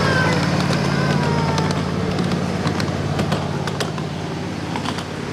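A 7.5-inch gauge miniature diesel-outline locomotive runs past with its engine droning steadily, fading as its train of riding cars rolls by. A few brief squeals come in the first two seconds, and scattered clicks follow as the cars go over the track.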